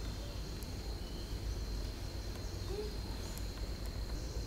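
Forest ambience: a steady high-pitched insect drone over a low rumble, with a few faint short calls, the clearest about two-thirds of the way through.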